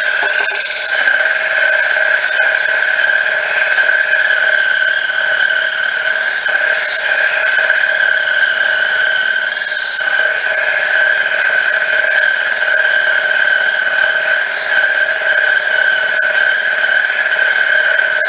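Boring-head cutter on a mini mill squealing steadily as it bores out a V-belt pulley, a high-pitched ringing squeal with several held pitches; the cutter is a little dull.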